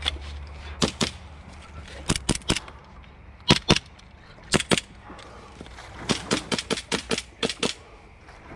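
Rapid gunfire from a black long gun: about twenty shots in short strings, ending in a fast run of about ten shots a few tenths of a second apart.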